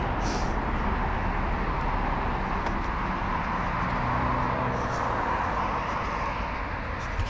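Steady road traffic: cars passing on a two-lane road, a rushing tyre-and-engine noise that swells a little midway as vehicles go by. A sharp click near the end.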